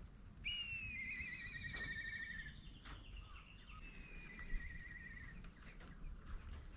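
A bird's faint whistled call that falls in pitch and breaks into a quavering trill, with a second quavering stretch a few seconds later.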